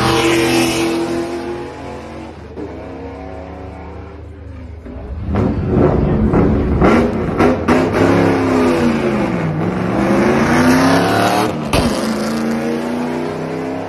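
Porsche 928 V8 drag car at full throttle: it runs past and fades away, then after a short lull revs hard with a few sharp cracks and pulls away, its pitch falling and then climbing again. A sudden break near the end is followed by the engine note rising once more.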